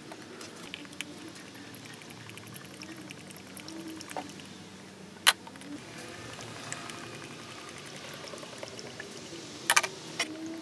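Fresh motor oil pouring from a plastic quart bottle through a funnel into the engine's oil filler during an oil change. Sharp plastic clicks and knocks from the bottles being handled cut in, the loudest about halfway through and a quick double knock near the end.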